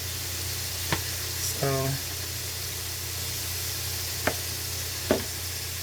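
Chicken frying in a pan, a steady sizzle, with a low steady hum under it. A few sharp clicks come about a second in and twice near the end.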